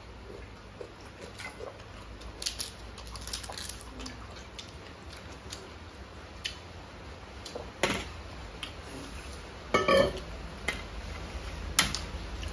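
Close-miked eating sounds: fingers working rice and food on steel plates, small clicks and crackles, and swallows of water from a steel bottle. A short vocal sound stands out about ten seconds in.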